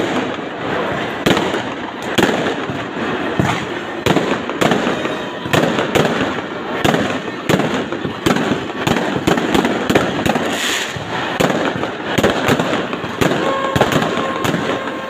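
Fireworks and firecrackers going off in quick, irregular succession, sharp bangs and crackles many times a second, over a crowd's voices.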